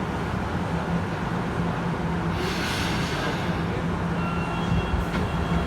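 Cabin of a Tokyu 8500 series commuter train running with a steady rumble and low hum. About two and a half seconds in, a burst of hiss comes and goes within a second. From about four seconds, faint high squealing tones join in as the train slows into a station.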